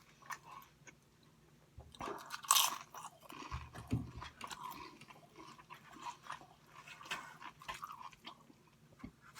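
A person chewing Chinese takeout food close to the microphone, with crunchy bites and irregular mouth clicks. It starts about two seconds in, and the loudest crunch comes soon after.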